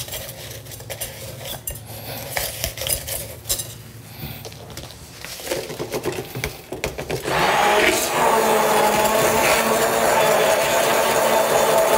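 Clinks and knocks of jars and utensils handled on a stainless-steel counter. About seven seconds in, a hand-held immersion blender starts and runs steadily, puréeing the mango-coconut dessert base.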